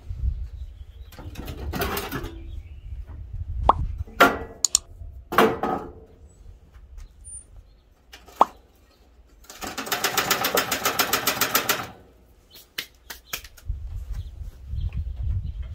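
Metal clanks and knocks as the lower firebox and ash-bin parts of a Masterbuilt Gravity Series 1050 charcoal grill are handled. A rhythmic rasping of about nine pulses a second runs for a couple of seconds in the middle and is the loudest sound. Wind rumbles on the microphone at the start and near the end.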